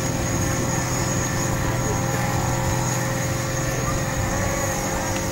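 A steady mechanical hum with a few constant tones over an even rushing noise, unchanging in level.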